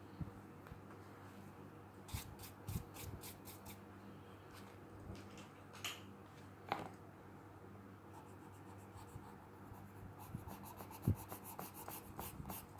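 Soft graphite pencil scratching on drawing paper in faint quick shading strokes, in a short run of strokes and then a denser run near the end.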